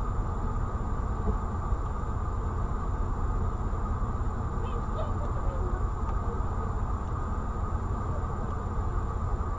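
Steady low rumble and hiss inside a stopped car, as picked up by a dashcam microphone, with a faint steady high whine. Faint voices from people on the road come through.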